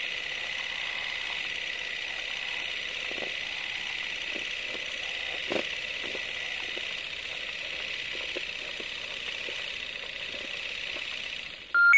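Film-projector sound effect for a countdown leader: a steady whirring hiss with scattered crackles and one louder click about halfway. A short single beep comes near the end as the countdown reaches two.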